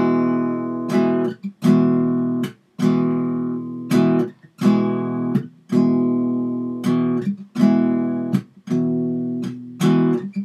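Acoustic guitar strumming an open E chord in a choppy rhythm. Each strum is stopped short by the right palm laid across the strings, so the chord cuts off sharply about once a second.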